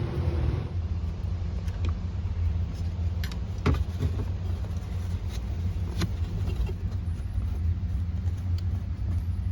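Small parts being handled while the shifter bezel trim is worked back into place: a few sharp clicks, the loudest about a third and two-thirds of the way through, over a steady low rumble.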